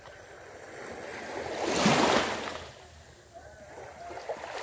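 Small waves washing onto the shore: one swells and fades about two seconds in, and another builds near the end.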